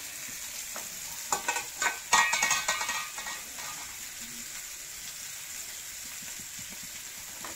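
Indian mackerel frying in coconut oil with curry leaves in a small pan, sizzling steadily. About a second in, a burst of louder sharp crackles and clatter lasts around two seconds.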